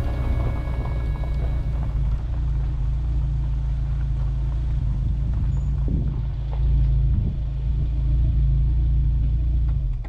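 Camper van driving slowly, a steady low rumble of the vehicle in motion.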